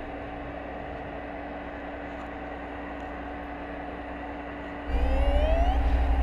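Steady underwater hum. About five seconds in, a killer whale close to the underwater microphone gives a loud rising call with a pulsing low rumble under it, lasting over a second and cutting off suddenly.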